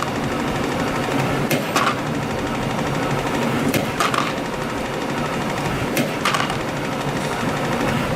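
CNC compression spring coiling machine (YHM CF-310) running steadily while forming 0.8 mm wire springs, with a pair of sharp clicks about every two and a quarter seconds as its work cycle repeats.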